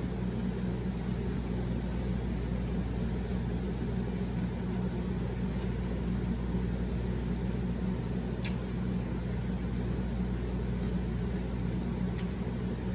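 Steady low hum, like a fan or appliance running, with a couple of faint clicks.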